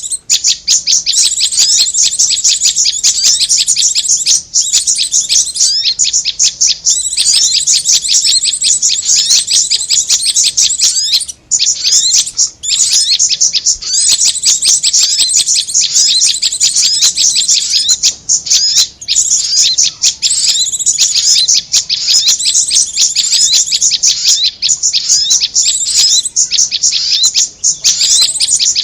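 Bird-lure recording of korlap and prenjak (prinia) calls: fast, high chirps repeated many times a second in long unbroken runs, with one short break about eleven seconds in.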